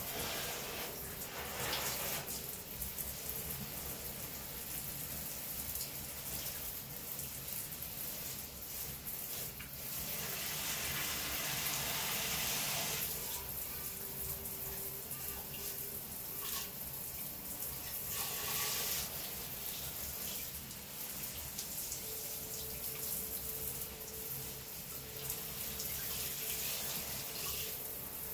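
Water spraying from a handheld shower head onto houseplants in a bathtub: a steady rushing hiss that swells and eases as the spray moves.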